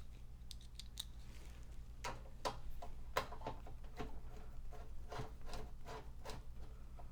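Scattered light clicks and knocks of a metal AT power supply being shifted into place inside a computer case, about a dozen, irregular.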